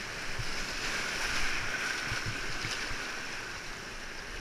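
Whitewater rapid rushing steadily around a kayak running through it, with a few short low thumps against the boat.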